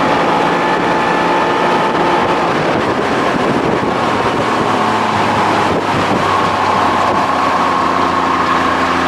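Two-stroke Evinrude outboard, converted from 25 hp to 30-35 hp, running steadily with the boat under way, with wind buffeting the microphone.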